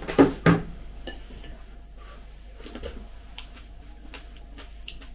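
Two sharp knocks about a quarter and half a second in as a phone is set down on a windowsill, then a metal spoon lightly clicking against a ceramic bowl of buckwheat porridge while eating.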